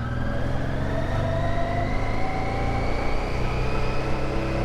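Vintage Honda Africa Twin's V-twin engine running under way, its pitch rising slowly as the bike gathers speed.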